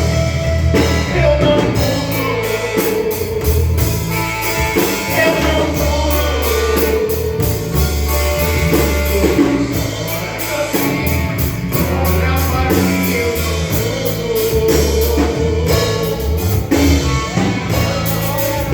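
A gospel band playing a song, a singer's voice carrying the melody over a steady drum beat, bass and guitar.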